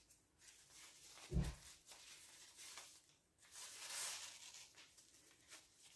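Faint rustling of a ribbon being wrapped and drawn around a cake, with a soft low bump about a second and a half in and a brief louder rustle about two-thirds of the way through.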